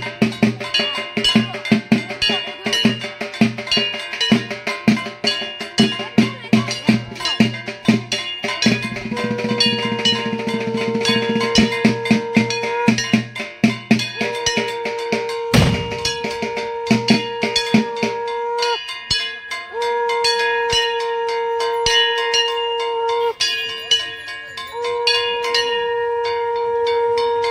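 Ritual drumming with ringing metal bell or gong strikes at a fast, steady beat, joined from about nine seconds in by conch shells blown in long held notes, four blows in a row of three to four seconds each. A single sharp bang cuts through near the middle.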